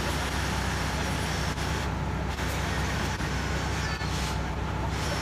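Mobile crane's diesel engine running steadily, a low, even rumble.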